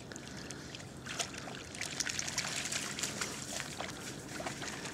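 Water lapping and trickling: a faint, steady splashing with many small ticks starting about a second in.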